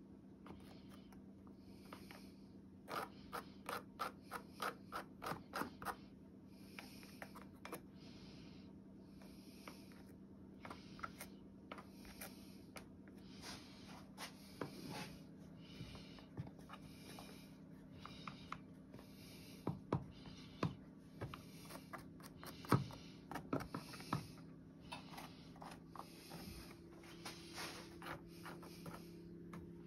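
Thin wooden stir stick scraping and tapping against a plastic mold while swirling liquid epoxy, with a run of quick taps a few seconds in and scattered scrapes after. A steady low hum sits underneath.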